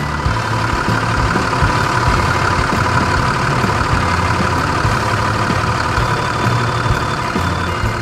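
Heavy vehicle engine sound effect running steadily: a low rumble with a higher hiss over it.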